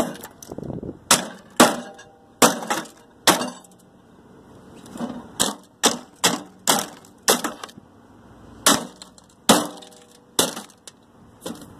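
A foot stamping repeatedly on a microwave oven's sheet-metal panel to knock out the turntable motor: about a dozen hard, uneven thuds, several with a short metallic ring.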